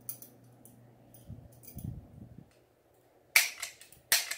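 Toy cap gun revolver being handled with small metallic clicks, then its hammer snapping down twice, two loud sharp cracks less than a second apart near the end.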